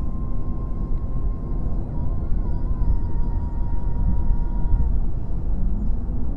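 Road and engine noise inside a car's cabin at highway speed, a steady low rumble. A faint steady high tone runs over it and stops about five seconds in.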